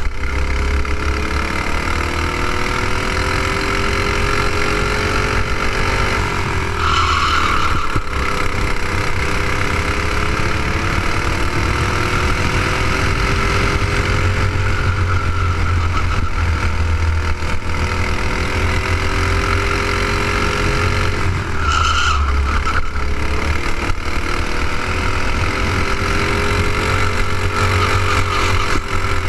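Clone-class racing kart's single-cylinder four-stroke engine, a Honda GX200 copy, heard onboard at racing speed. Its pitch climbs steadily down each straight and drops sharply as the kart slows for a corner, about seven and twenty-two seconds in, then climbs again.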